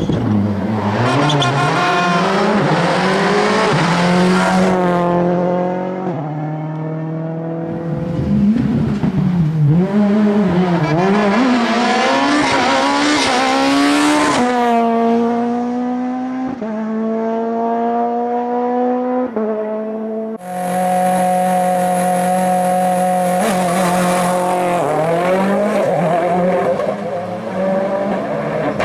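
Rally car engines revving hard, the pitch climbing and falling as the cars brake, turn and accelerate away, with several quick upshifts stepping the note down. The sound changes suddenly about two-thirds of the way in and continues as another loud revving engine.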